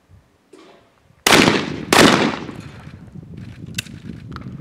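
Two shotgun shots fired at a skeet double, about two-thirds of a second apart, each crack trailing off in a fading echo. Both targets are hit.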